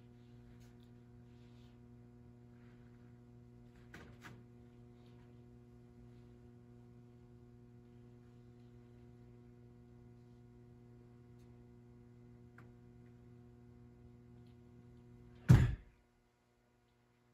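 Steady electrical mains hum, with a couple of faint knocks and then one short, loud thump about fifteen seconds in, after which the sound cuts out to silence.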